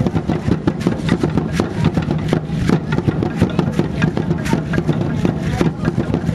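Aztec dance drumming in a fast, steady beat, with the dancers' seed-pod ankle rattles (ayoyotes) shaking with every step.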